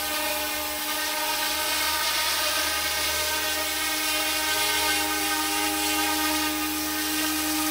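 Small electric RC scale AH-64 Apache helicopter running: a steady high motor whine with several tones over the whoosh of its spinning rotors.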